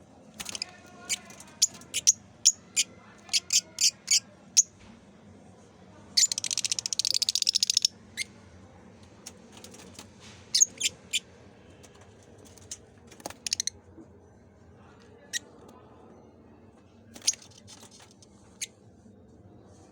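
Lovebirds chirping: a string of short, sharp, high calls, with a rapid chattering run lasting about two seconds around six seconds in.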